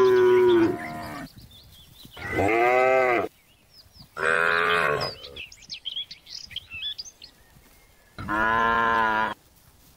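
Cattle mooing: four moos of about a second each, the last one near the end.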